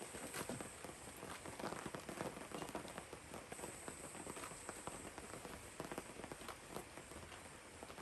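Rain falling, with many irregular drops pattering sharply on a nearby surface over a steady hiss of rainfall.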